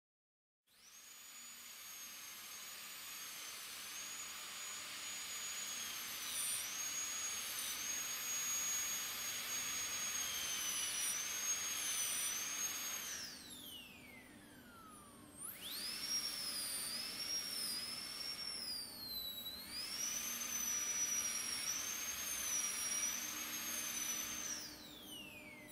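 High-speed dental handpiece whining as its bur cuts the occlusal surface of an artificial practice tooth, its pitch sagging under cutting load. It starts about a second in, winds down with a falling whine about halfway through, starts up again a couple of seconds later, and winds down once more near the end.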